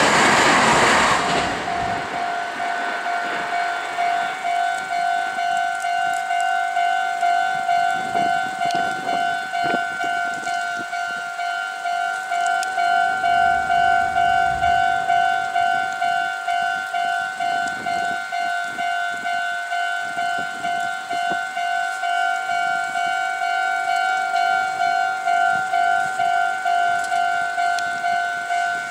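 Japanese level-crossing warning bell ringing steadily at about two dings a second, warning that the crossing is still closed for an oncoming train. A passing train's noise dies away in the first second or two.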